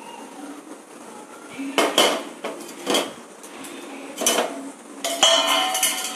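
Steel bowl and spoon clinking and scraping against a cooking pot as soaked kudampuli (Malabar tamarind) is scraped into boiling fish curry: a handful of sharp ringing knocks, with a longer run of scraping clatter near the end.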